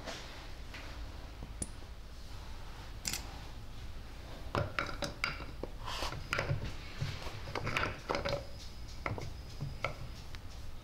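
Scattered metal clinks and light scrapes as a tractor engine's steel connecting rod is handled and worked into the small end of a piston on a workbench. Clusters of clinks come about halfway through and again a little later, with a few sharp ticks near the end.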